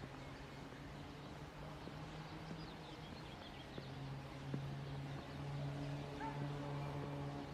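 Open-air city plaza ambience: a steady low mechanical hum, louder in the second half, with faint bird chirps and a few scattered clicks.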